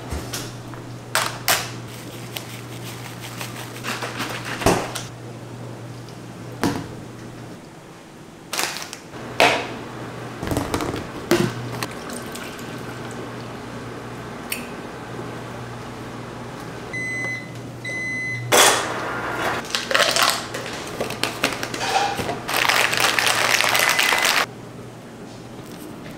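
Microwave oven running with a steady low hum, broken by clicks and knocks of handling, then two short beeps about two-thirds of the way in. A couple of seconds of loud, noisy clatter follow near the end.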